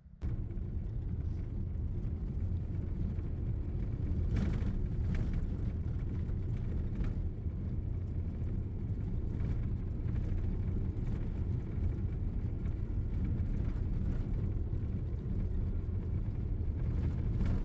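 Steady low rumble of a vehicle's engine and road noise, as heard while driving.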